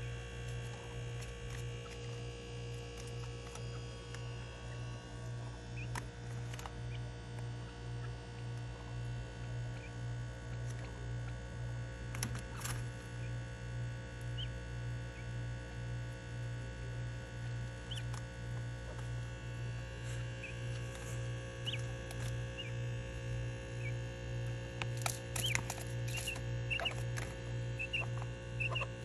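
Caged Japanese quail giving short, soft high chirps, scattered at first and more frequent near the end, with a few scratchy clicks. A steady low hum runs underneath.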